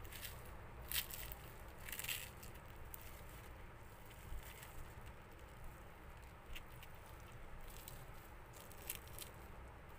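Crisp gram-flour batter crust of fried beguni (eggplant fritters) crunching and crackling as fingers break the fritters apart. There are a few faint, scattered crunches, the clearest about a second and two seconds in and smaller ones later. The crackle is the sign of a crisp crust.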